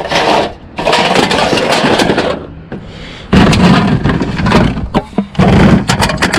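Aluminum cans and scrap being handled and packed into a bicycle trailer: a rough run of rattling, crinkling and scraping. From about halfway it comes in louder stretches with a heavy low rumble.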